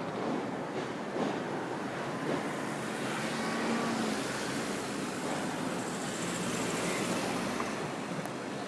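A high-rise building shaking in a major earthquake, giving a rhythmic metallic clanking that thins out within the first couple of seconds, under a steady rushing noise that carries on throughout.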